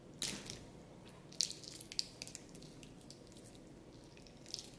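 Clear plastic protective film crinkling as it is peeled off a metal watch bracelet clasp, in a few short, sharp crackles.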